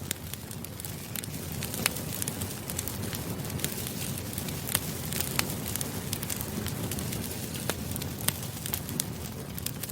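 Bonfire burning steadily, with a low rumble and irregular sharp crackles and pops of burning wood.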